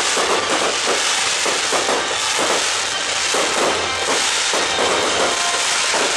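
Fireworks display crackling and popping in a dense, continuous barrage, over music played for the show.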